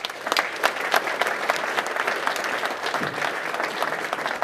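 A group of people applauding, many hands clapping at once, steady throughout.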